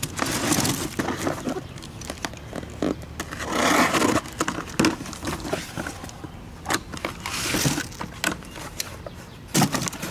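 Cardboard boxes and styrofoam packing being unpacked by hand: foam sliding and scraping against cardboard, with rustling, scattered knocks and one longer scrape about 4 seconds in.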